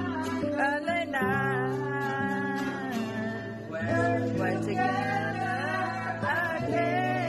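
A woman singing with her own acoustic guitar, the guitar holding low chords under the sung melody.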